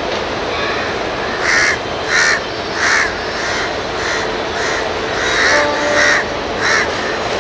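Crows cawing, a run of short harsh calls about one every half second or so, starting about a second and a half in, over a steady background hiss.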